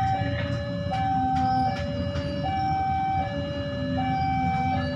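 Railway level-crossing warning alarm sounding a steady two-tone hi-lo pattern, each tone held a little under a second, over a low rumble. It signals that a train is approaching the crossing.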